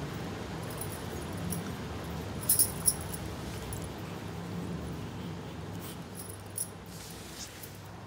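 A few sharp, light clicks and taps from a pencil and a paper sheet being handled: three close together about two and a half seconds in, and one more near the end, over a steady low hum.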